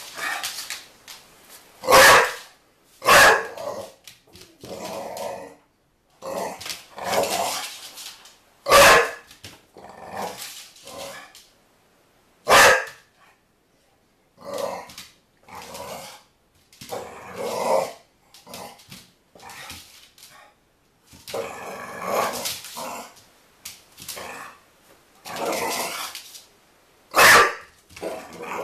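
Pit bull puppy barking at a soccer ball: a handful of sharp, loud barks spread through, with softer, longer barks and growls in between.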